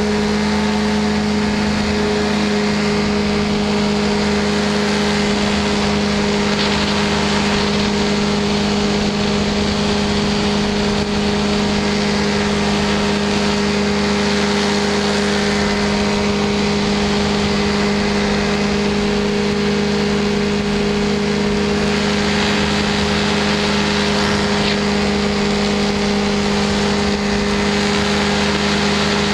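Light aircraft engine and propeller running steadily at full takeoff power through the takeoff roll and climb-out, with an even rush of air noise.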